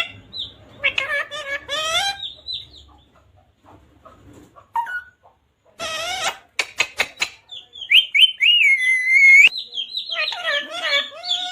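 A pet parrot calling: a series of harsh squawks and chirps, with a few sharp clicks and a longer drawn-out call about eight seconds in.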